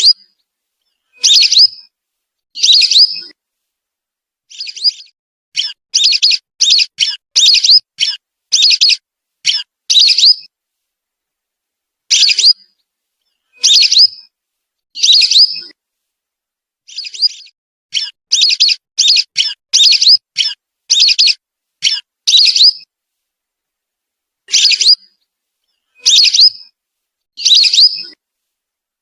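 Whistling duck (belibis) giving short, high whistled calls over and over, some alone and some in quick runs of four or five, with clean silence between them.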